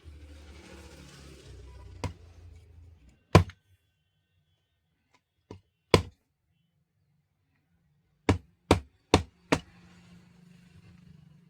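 Sharp knocks on a hard surface during work on a power tile cutter: a few single knocks, then four quick ones in a row about 0.4 s apart. A low hum sits under the first few seconds.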